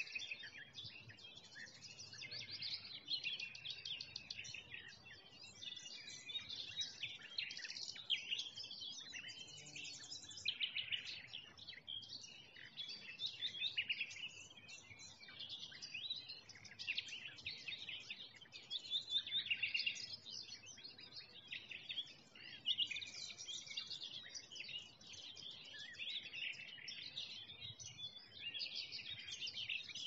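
Many songbirds singing together, a dense chorus of overlapping chirps, trills and short whistled phrases with no pause.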